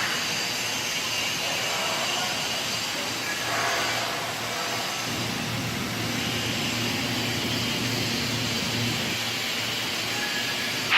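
Steady whirring and humming of machinery in a robotic welding cell, with a brief louder hiss about three and a half seconds in.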